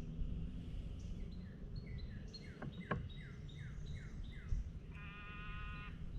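Birds singing: a rapid run of short, down-slurred chirps for several seconds, then a short buzzy call about five seconds in, over a low steady rumble of wind and water noise.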